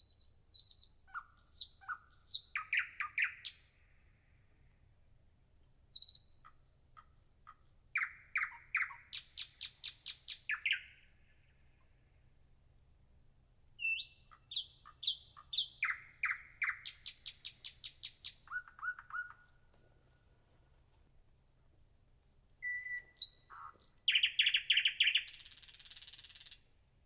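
A songbird singing in four phrases of quick, repeated trilled notes, each phrase a few seconds long with pauses of a few seconds between them.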